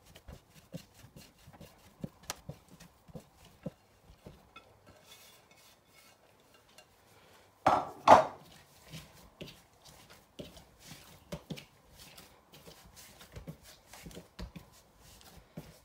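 Hands mixing and kneading soft samosa dough, first in a glass bowl and then on a silicone pastry mat: light scattered knocks and squishes, with two loud knocks a little over halfway through.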